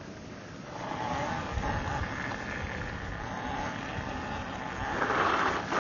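Electric dirt bike riding off, its motor whining faintly over wind and tyre noise, getting louder about a second in and again near the end.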